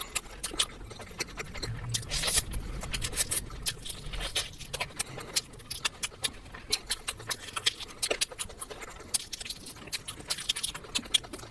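Close-miked eating: chewing and mouth noises, a steady stream of small wet clicks and smacks.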